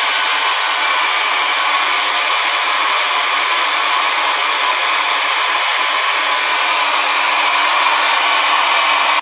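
Hairdryer running steadily: a loud, even rush of blown air with a faint high whine in it.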